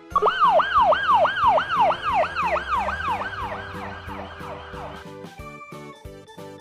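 Siren-style yelping sound effect, about three quick sweeps a second that go up and then fall, fading out after about five seconds. Bouncy background music with a steady beat runs underneath and continues after it.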